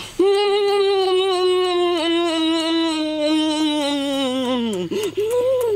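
A person's long closed-mouth "mmm" hum while chewing food, the pitch sinking slowly over about four and a half seconds, then two short rising-and-falling hums near the end: the hum of relish at a tasty mouthful.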